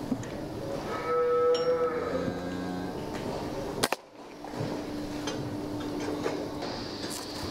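A cow moos once, about a second in. Just before the middle comes a single sharp crack, a shot from a Brocock Compatto PCP air rifle that knocks a rat over.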